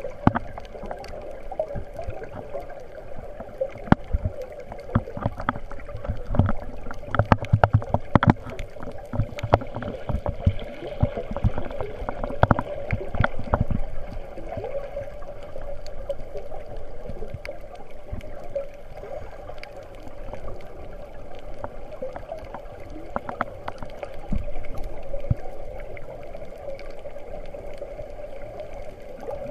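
Muffled underwater sound picked up through a waterproof camera housing: a steady murmur of water with many scattered sharp clicks and knocks, busiest in the first half, and some low rumbling bursts of water movement.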